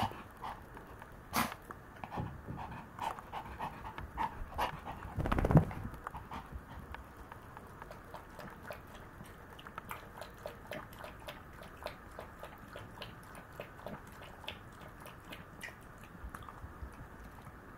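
A Maltese dog panting and snuffling at play, with a single heavy thump about five and a half seconds in. After that, a long run of small irregular clicks as it feeds from its bowl.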